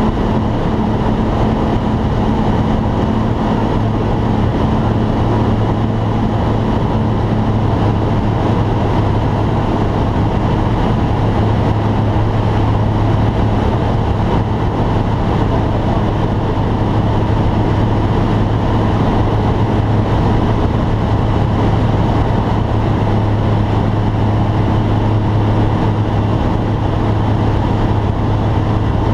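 Steady drone of a T-10M light aircraft's piston engine and propeller in flight, heard inside the cockpit, with airflow noise over the cabin.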